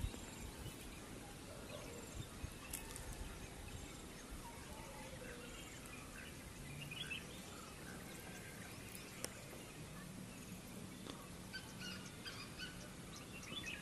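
Faint birdsong from the surrounding forest, scattered calls with short glides, with junglefowl crowing among them. A couple of faint clicks stand out briefly.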